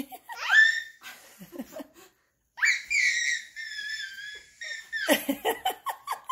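An infant's high-pitched squeals, the second a long one of about two seconds. Near the end an adult laughs in quick bursts.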